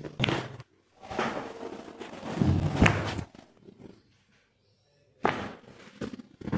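Chiropractic adjustment: shuffling and pressing on the treatment table, then one sharp crack-thump of the adjusting thrust about three seconds in, followed by a couple of shorter knocks.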